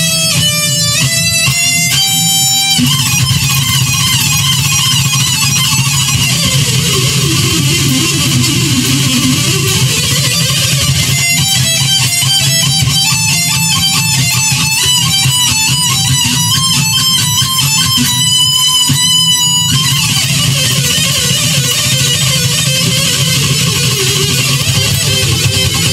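Distorted electric guitar playing a neoclassical metal lead over a steady backing: held notes, a run that falls and climbs back up, then quick runs of notes through the middle.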